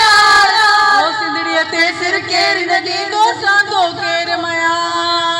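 A woman singing a Sindhi patriotic song into a microphone through the loudspeakers, over a sustained keyboard chord. About a second in, a long held note gives way to shorter, wavering phrases.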